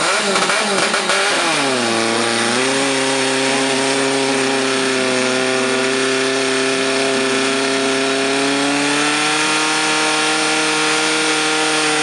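Portable fire pump engine running at full throttle while pumping water into the attack hoses. Its pitch dips about two seconds in, holds steady, then rises slightly near the end.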